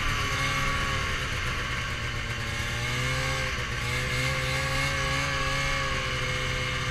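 Ski-Doo snowmobile engine running at a steady cruising speed, heard from the rider's seat along with track and wind noise. The engine note dips slightly about three and a half seconds in, then steadies again.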